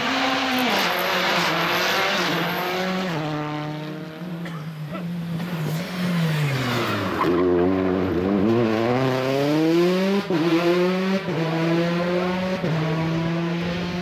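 Rally car engines at high revs, the pitch climbing and stepping down at each gear change. About halfway through the engine note drops low as a car brakes into a corner, then climbs again as it accelerates away.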